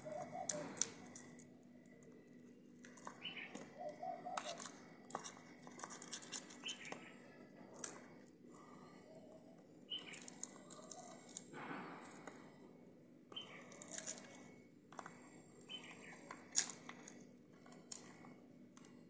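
Knife clicking and scraping against a steel plate as squares of soft barfi are cut and lifted out, in scattered light taps at irregular moments over a faint steady hum.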